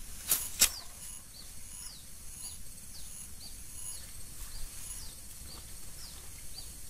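Small birds chirping in the background, short falling chirps repeating irregularly. Two sharp clicks come just after the start and are the loudest sounds.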